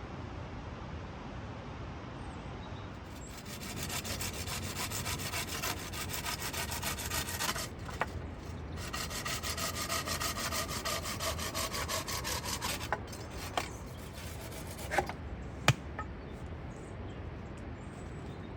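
A saw cutting through wood in two spells of quick, steady strokes with a short pause between, followed by a few sharp knocks.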